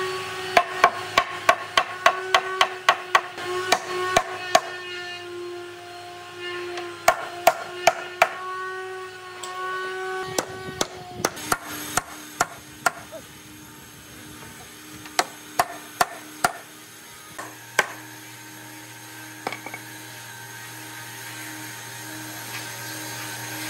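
Hammer blows on a wooden door frame held in steel bar clamps, knocking its joints tight: several quick runs of sharp knocks with pauses between them, over background music.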